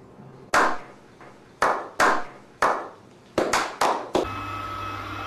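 Hand clapping: single slow claps about a second apart that quicken into a faster run, ending about four seconds in. A steady hum with a few held tones follows.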